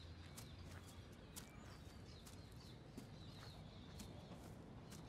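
Faint outdoor ambience with small birds chirping in short, scattered calls.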